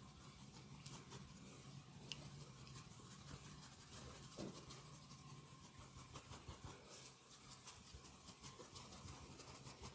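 Faint rubbing and scratching of hands massaging, with a few light clicks, over a low steady hum.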